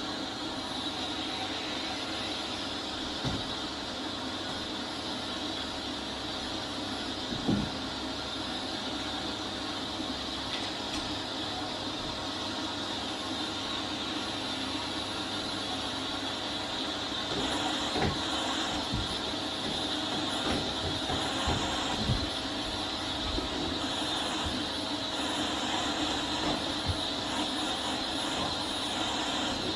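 Vax Air Steerable Max upright vacuum cleaner running steadily while being pushed around, with a few short knocks as it moves.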